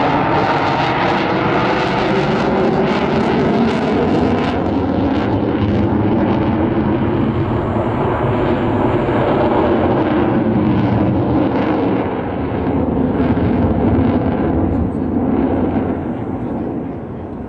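Fighter jet flying a display pass: a loud, steady jet-engine noise with a rough crackle, fading away near the end.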